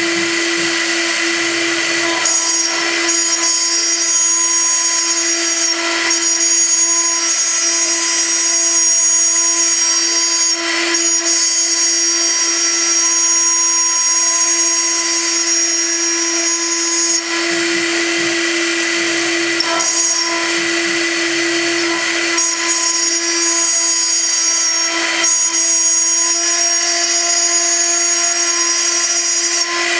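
High-frequency spindle of a MillStep CNC gantry milling machine cutting aluminium: a steady whine with a higher cutting tone that stops and starts again several times as the tool moves over the part.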